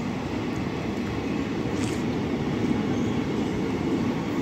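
Indian Railways passenger coaches rolling past at speed on the near track: a steady low rumble of wheels on rail, with one brief sharp high sound about two seconds in.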